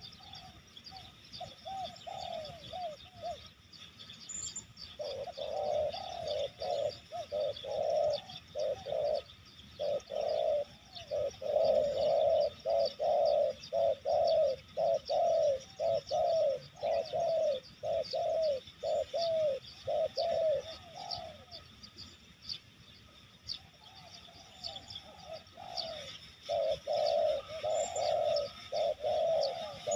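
Spotted doves cooing in long runs of short, repeated coos, with a fainter lull about three quarters of the way through before the calling picks up again.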